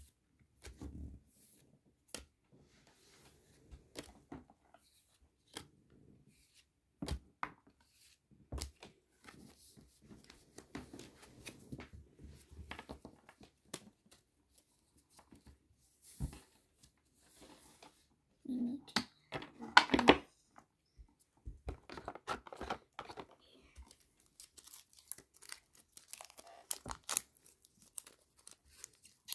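Pokémon trading cards being flicked and slid one over another with soft taps and rustles as a stack is sorted, then the foil wrapper of a booster pack crinkling and tearing as it is opened near the end. A louder burst of rustling comes about two-thirds of the way through.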